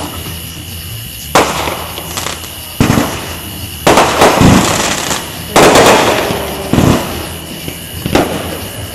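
Aerial fireworks bursting overhead: a series of sharp bangs roughly a second apart, some in quick pairs, each trailing off in a short fading rumble.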